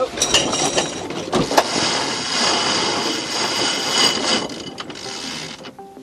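Sailboat cockpit sheet winch clicking and buzzing as its ratchet pawls turn while the headsail sheet is hauled in fast straight after a tack. A few separate clicks come first, then a quick continuous buzz of clicks from about two seconds in, fading near the end.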